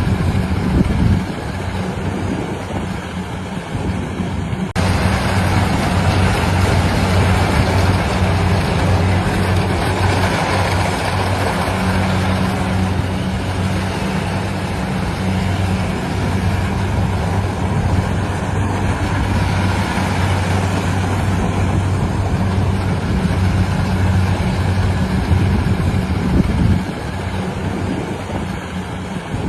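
Engine-driven farm machinery running steadily in a rice harvest: a low engine hum under a dense mechanical rattle and hiss. The sound changes abruptly about five seconds in, becoming fuller in the upper range.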